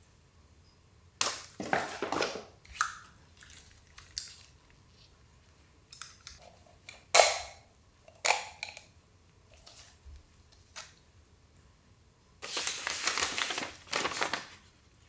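Unboxing handling noise: scattered rustles, clicks and light knocks of plastic packaging, cable and a small plastic device being handled. Near the end comes a longer paper rustle as a folded instruction sheet is opened out.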